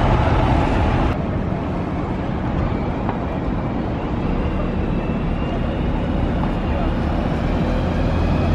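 City street ambience: a steady rumble of traffic with faint voices mixed in. The brighter hiss drops away abruptly about a second in, leaving the low rumble.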